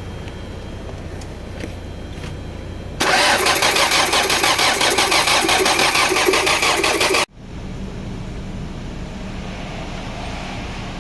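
Engine turned over by its starter motor for about four seconds with an even pulsing rhythm, then cut off suddenly without the engine catching: a crank-but-no-start. A low steady hum runs before and after.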